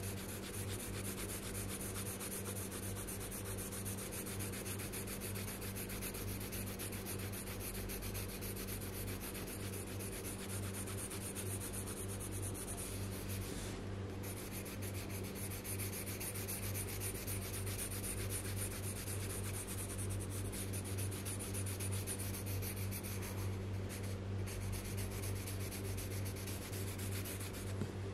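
Coloured pencil shading on paper: a steady run of quick scratchy strokes, breaking off briefly twice as the pencil is moved. A steady low electrical hum lies underneath.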